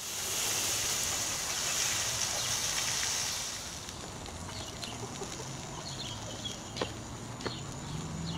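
Outdoor ambience: a steady high hiss that fades after about three and a half seconds, then short bird chirps and a few light clicks.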